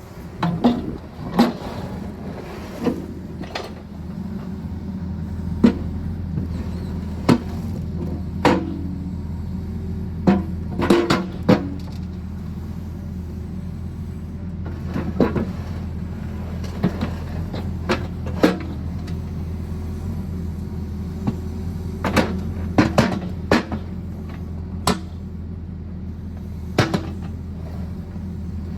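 Sany SY80 excavator's diesel engine running steadily, with scattered sharp clanks and knocks as the reversed bucket works gravel.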